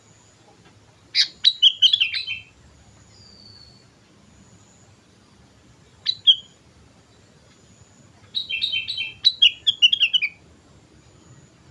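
Sooty-headed bulbul singing in three bursts of quick, bright, bubbly notes: a phrase about a second in, a short two-note call near the middle, and a longer run of notes near the end.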